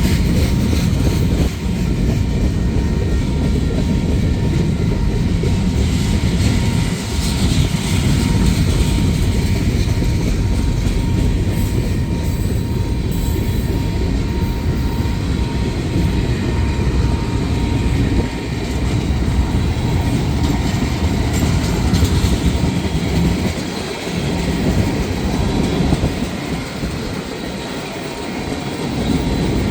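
Freight cars of a Union Pacific manifest train rolling past: a loud, steady rumble of steel wheels on rail with clacking over the rail joints, easing briefly near the end.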